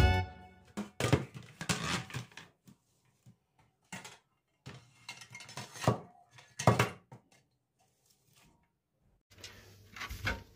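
Serving trays knocked and clattered a few times against each other and a plastic basket as they are stood upright in it. Near the end a faint steady low hum sets in.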